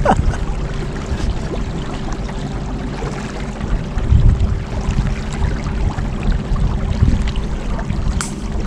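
Small boat running on a battery-powered electric trolling motor: water rushing and splashing along the hull, with a steady motor hum underneath.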